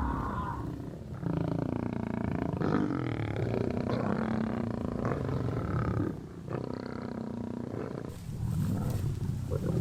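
Lions growling and roaring in long, rough stretches with two short breaks.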